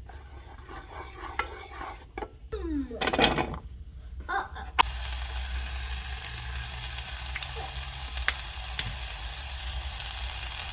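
Food sizzling in a hot frying pan, starting suddenly with a click about five seconds in and then running steadily. Before that come a few light knocks and a short falling voice.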